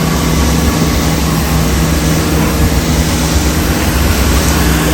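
Engine-driven pressure-washing pumps running steadily, with the continuous hiss of a spray.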